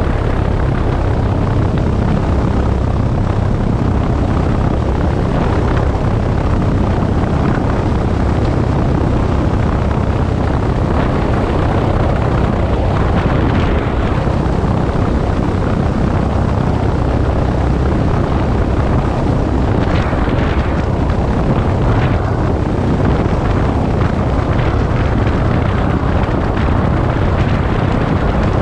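Single-engine propeller airplane taxiing at low power: the engine and propeller give a steady, unbroken drone.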